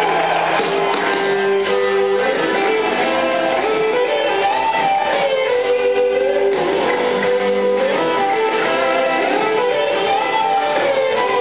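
Live rock band music led by electric guitars playing long, sustained lead notes that bend and glide over the rest of the band.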